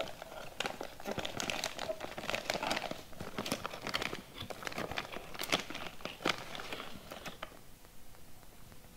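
Packaging of a chestnut cake crinkling and tearing as it is opened, a dense run of crackles that dies down about seven and a half seconds in.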